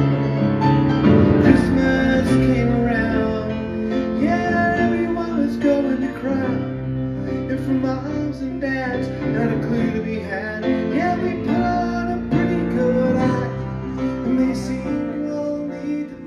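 Grand piano played live: an instrumental passage of rhythmic chords in a pop song, with no singing.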